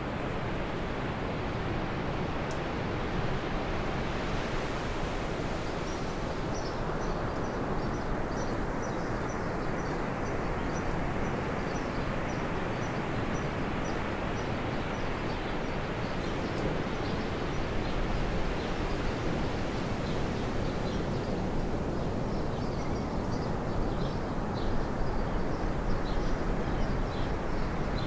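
Steady rushing background noise, with faint high-pitched ticks repeating from about six seconds in.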